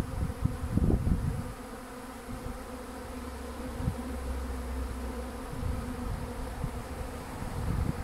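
A honey bee swarm buzzing in the air around its new hive: a steady, dense hum of many wings, which the beekeeper calls noisy though the bees are calm. Low thumps come in the first second or so and again near the end.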